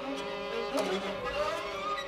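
Contemporary chamber music for mandolin, two violins and double bass, the violins playing held and shorter notes, with a short upward slide about a second in.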